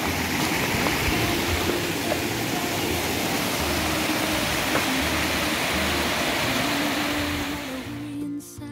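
Mountain waterfall cascading over layered rock ledges: a steady, loud rush of falling water, with soft background music beneath it. The water sound drops away near the end.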